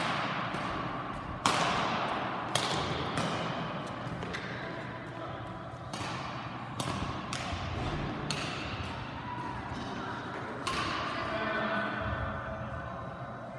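Badminton rally: sharp, irregularly spaced racket hits on the shuttlecock, each echoing in the large hall.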